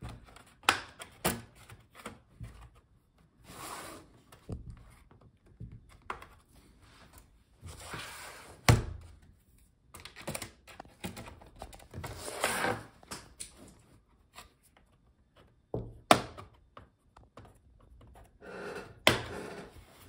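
Snap-fit clips of a Lenovo ThinkPad T16 Gen 2's plastic bottom cover clicking loose one after another as a plastic pry tool is worked along the seam, with the tool scraping and rubbing in between. The clicks are sharp and come at uneven intervals.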